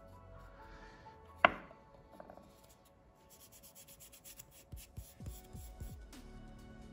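A piece of Taiwan yellow cypress wood knocks sharply once onto a hard surface about a second and a half in. Light clicks, knocks and rubbing from handling the wood follow, clustered near the end.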